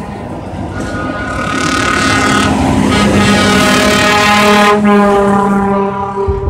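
Truck air horns sounding long, steady chords that change pitch a couple of times, over the engine of a Volvo tractor unit passing close by. The sound is loudest about four to five seconds in, as the truck goes by.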